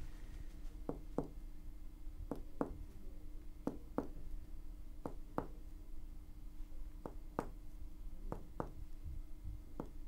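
Clinical finger percussion over the liver: a fingertip striking a finger laid flat on the chest wall, sounding as short, soft taps in pairs, about one pair every second and a half, as the examiner works along to map the liver span.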